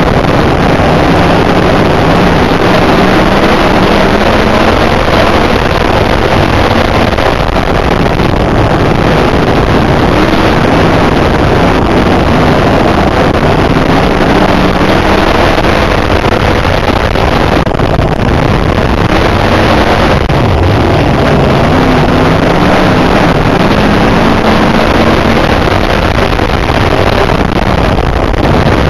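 IMCA dirt modified race car's V8 engine, heard from inside the car, running hard under racing load. Its pitch rises and falls several times as the car accelerates and lifts through laps of a dirt oval.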